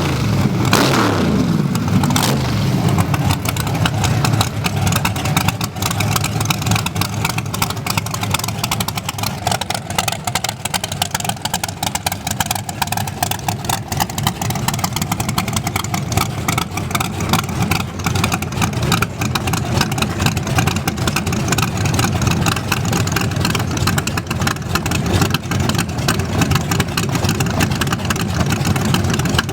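Drag-racing car engines running and being revved, a loud, steady engine sound with no lull.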